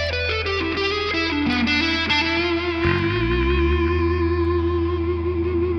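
Telecaster-style electric guitar played through effects with light distortion. It plays a fast descending run of picked notes, then holds a single note with vibrato from about three seconds in, over a low steady hum.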